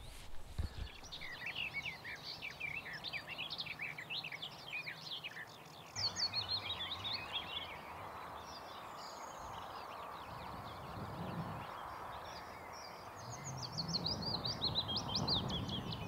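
Small songbird singing a rapid, twittering song of quick chirps, with a run of notes falling in pitch near the end, over steady outdoor background noise.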